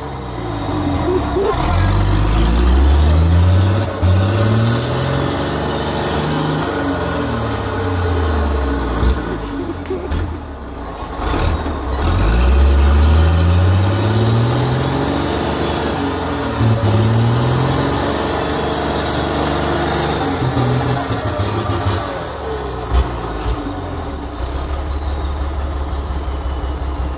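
Heavy off-road truck's engine labouring through deep mud, revving up again and again with the pitch climbing and dropping on each surge. It settles to a steady low rumble near the end.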